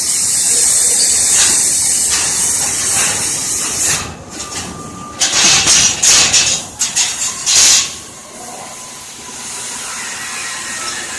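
Plasma torch of a CNC plasma cutting machine hissing steadily as it cuts metal. The hiss cuts off about four seconds in, followed by a string of short, loud hissing bursts, then a quieter steady machine noise with a faint thin whine.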